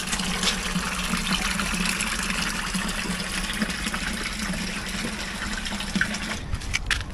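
Spring water pouring from three spouts into a stone basin: a steady splashing rush that breaks off near the end.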